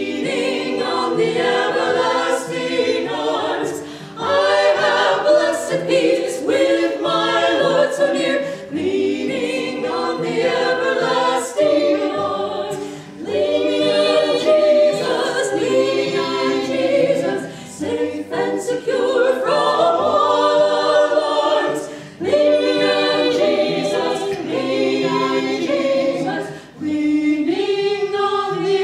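Women's vocal quartet singing an Early American hymn or folk song in harmony, phrase after phrase with short breaks between lines.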